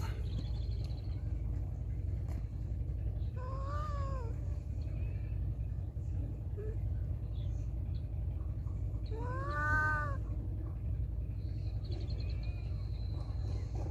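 A feral cat meowing twice, about six seconds apart, each meow about a second long, rising then falling in pitch. A steady low hum runs underneath.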